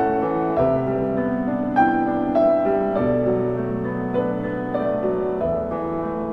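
Background piano music with sustained notes and chords.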